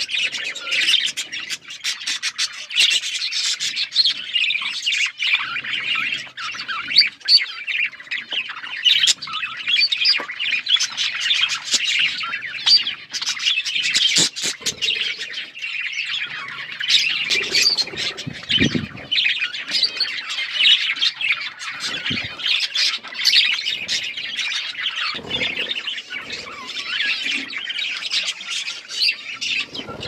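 A group of budgerigars chattering and chirping continuously, a dense mix of overlapping high chirps and squawks.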